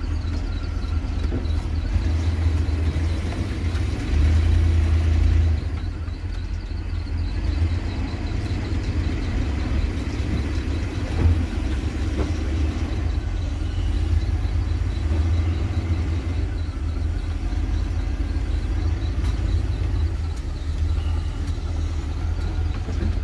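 1986 Fleetwood Southwind motorhome's engine running with a steady low rumble, heard from inside the cab as it drives slowly. It gets louder for a second or so about four seconds in, and there is a single knock about eleven seconds in.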